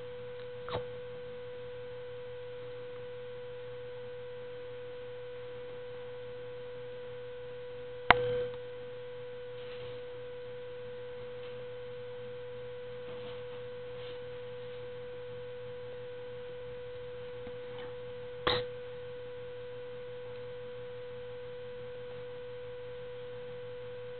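A steady mid-pitched hum at a single pitch, with three short knocks about a second, eight seconds and eighteen seconds in; the middle knock is the loudest.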